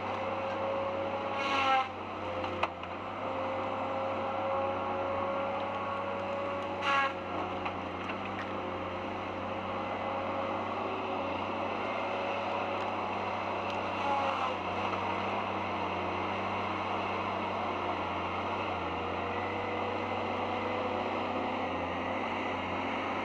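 A heavy forestry machine's engine and hydraulics running steadily with a sustained tone, broken by three short, louder bursts.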